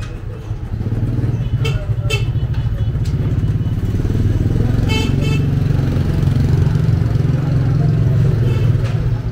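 Motorbike engine running close by, getting louder over the first second and staying loud until near the end.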